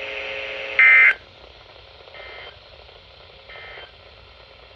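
Emergency Alert System end-of-message data bursts on NOAA Weather Radio: three short blasts of screechy digital tone about 1.3 s apart, the first much louder than the other two, marking the close of the warning broadcast.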